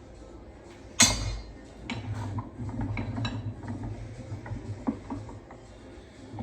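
Loose steel pieces being handled in a workshop: one sharp metal clank about a second in, then a run of small metallic clinks and rattles.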